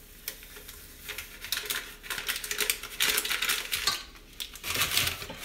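Crinkling and crackling of a plastic dry-mix pouch being shaken out into a stainless-steel mixer bowl, with light clicks and taps against the bowl.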